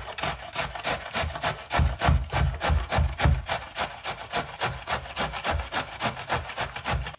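Peeled gourd grated on the coarse holes of a stainless-steel box grater standing on a wooden board: quick, even rasping strokes, about five a second, with dull low thumps mixed in through the middle.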